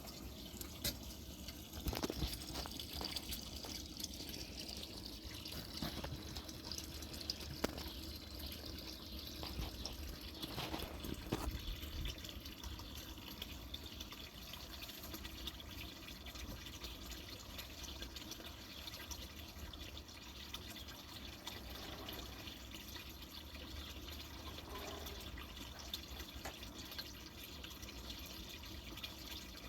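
Garden water fountain flowing, a steady trickle and splash of falling water with small drips.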